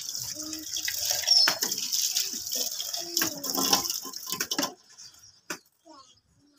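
Water from a wall tap running and splashing as a plastic jug is rinsed under it; the tap is turned off and the flow stops suddenly about four and a half seconds in.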